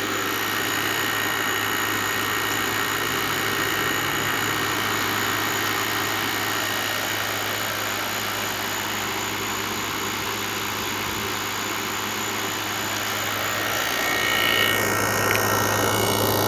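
Midea MAWO5M1WBL window air conditioner running, heard from its outdoor side: a steady low hum under an even whoosh of fan noise.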